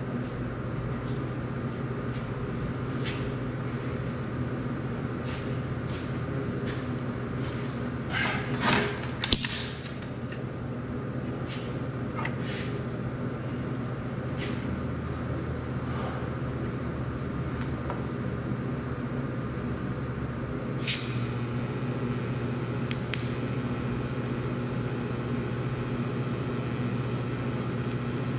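A steady low electrical hum runs throughout. About eight to ten seconds in there is a brief clatter of handling, and a couple of sharp clicks come later. Near the end the TIG arc is struck on the steel pipe joint and the hum grows a little stronger.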